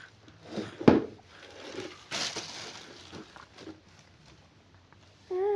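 Handling noise from a pressure washer and its packaging: rustling, small clicks and a sharp knock about a second in. Near the end comes a short, wavering voice-like call.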